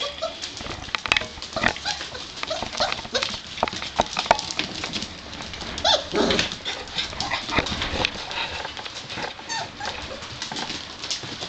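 Five-week-old Gordon Setter puppies play-fighting: short high yelps and whines, with claws and paws clicking on a tile floor.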